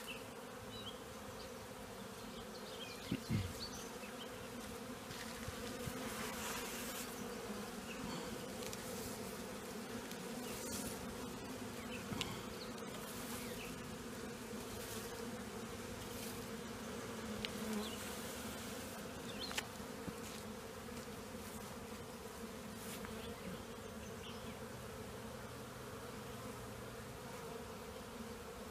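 Honeybee swarm buzzing steadily around and into a nuc box as the bees move in through the entrance, with a couple of brief knocks, one a few seconds in and one past the middle.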